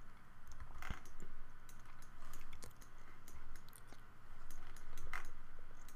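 Computer keyboard and mouse in use: scattered, irregular light clicks of keys and buttons as Blender shortcuts are pressed, over a faint steady hum.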